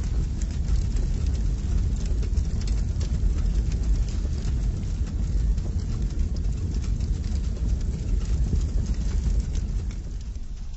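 Intro sound effect for an animated logo: a steady deep rumble with scattered crackles, fading near the end.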